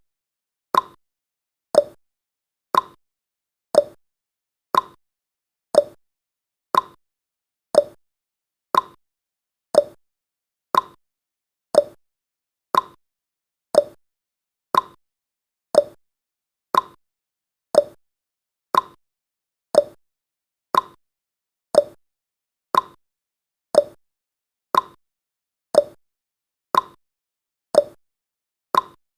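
Countdown timer's clock-style ticking sound effect: one sharp tick each second, alternating between a lower and a higher tick like a tick-tock.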